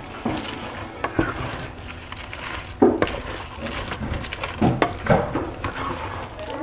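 Wooden spoon stirring fried tortilla chips into salsa verde in a metal pan: irregular scraping and knocking against the pan, with the sharpest knock about three seconds in.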